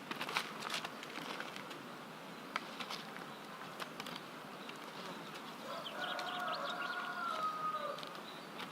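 A bird gives one drawn-out call of about two seconds, wavering and dropping slightly at the end, starting about six seconds in. Scattered light clicks and taps come before it, most of them in the first second.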